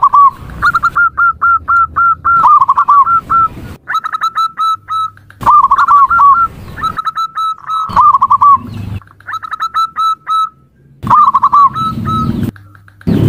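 Female zebra dove (perkutut) calling. Repeated bouts of quick, short cooing notes, each ending in a few louder rolling coos, come every two to three seconds.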